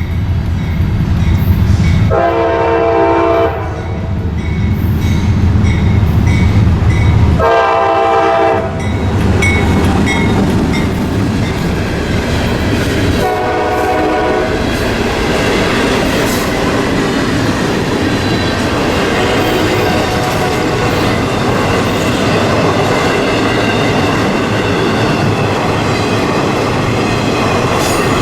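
A CSX freight train's diesel locomotive passes, sounding its horn in three blasts: two long ones, then a shorter, fainter one, over the engine's low rumble. After that the train's cars roll by in a steady clattering noise.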